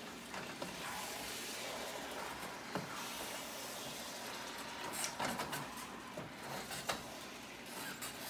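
Ground beef sizzling in a frying pan while a wooden spatula stirs and breaks it up, with scrapes and sharp taps against the pan, the loudest about five and seven seconds in.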